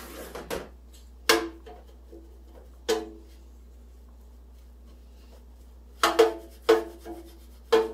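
Metal Pullman loaf pan knocking against a stainless steel worktable as it is tipped and stood upright while being greased. Six sharp clanks, two of them in quick succession about six seconds in, each ringing briefly with a hollow metallic tone.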